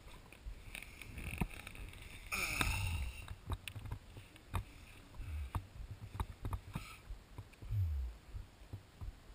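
Paddler shifting and lying back in an inflatable kayak: scattered small knocks and clicks, a louder creaking rub about two and a half seconds in, and a couple of dull thuds later.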